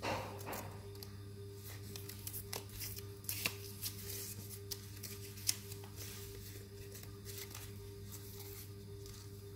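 Paper being handled: light rustling with a few sharp clicks, over a steady low hum.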